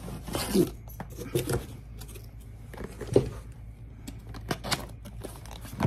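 A cardboard shipping box being handled and opened by hand: irregular rustling and scraping with scattered clicks and taps.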